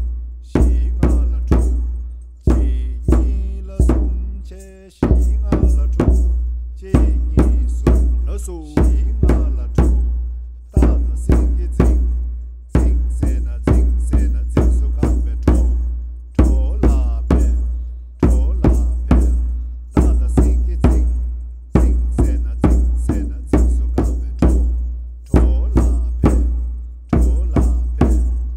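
Tibetan drums beaten in a steady rhythm of deep strokes, several a second, in repeating groups with brief gaps between them.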